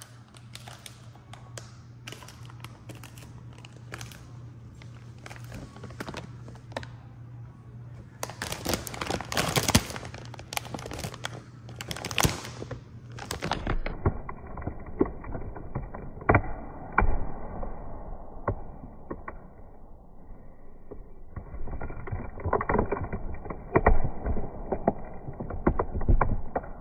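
Plastic tortilla-chip bag crinkling and crackling in irregular sharp bursts as a cat mouths and licks at its corner. A steady low hum runs under the first half and stops about halfway through.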